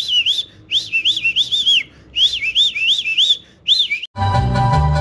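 Four short bursts of chirping, whistled notes, each about a second long, swooping rapidly up and down in pitch. About four seconds in, an abrupt cut to music with a steady beat.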